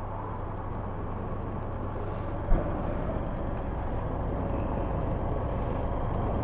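Steady low hum of motor vehicles, with a single low thump about two and a half seconds in.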